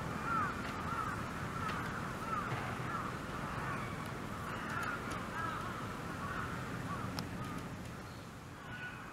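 A group of animals calling: many short, overlapping calls repeating throughout, over steady background noise.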